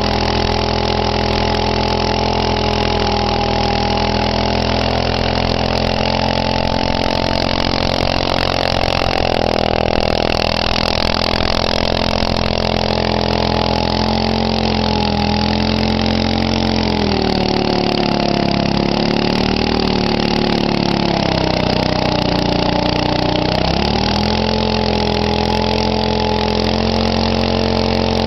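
6.5 hp Honda-clone single-cylinder engine of a Manco Thunderbird minibike running at steady revs during a burnout, the rear tire spinning against the asphalt. Past the middle the revs sag twice and come back up.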